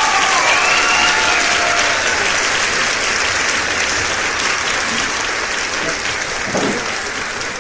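Steady, loud hiss of water spraying down onto crates of freshly harvested shrimp.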